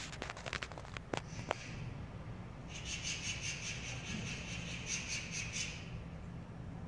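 A stray cat chewing food, a few sharp crunching clicks in the first second and a half. Then a high, rapidly pulsing chirping runs for about three seconds and stops.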